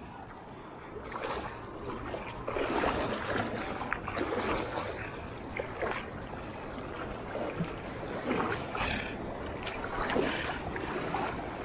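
Waist-deep ocean surf sloshing and splashing around someone wading through it, in irregular surges every second or two.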